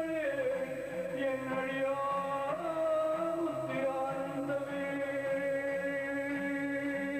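Devotional chanting or singing with musical accompaniment: long held notes that glide slowly in pitch, over a low accompaniment that wavers up and down about twice a second.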